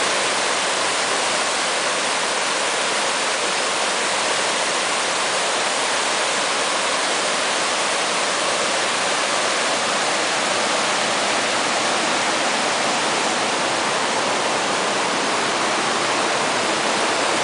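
Floodwater rushing: a swollen creek overtopping a paved path and pouring over its edge as whitewater, a steady, unbroken rush of water.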